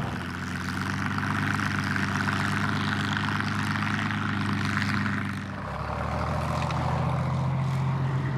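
Tank engines running steadily under a dense mechanical clatter. The engine note changes about five and a half seconds in.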